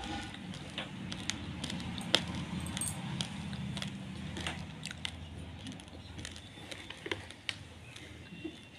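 Raw basmati rice grains clicking and rattling in many sharp, irregular ticks.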